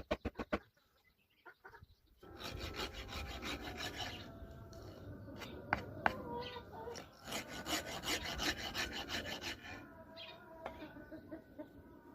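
Wood rasp scraping a wooden axe handle in quick repeated strokes: a short burst at the start, then steady rasping from about two seconds in.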